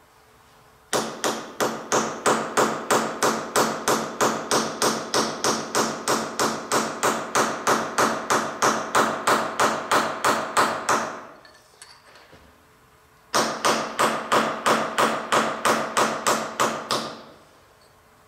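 Hand hammer rapidly striking steel on a horizontal boring mill's spindle to loosen the spindle support collet, about three ringing blows a second. A long run of about ten seconds, a pause, then a shorter run of about four seconds, each tailing off at the end.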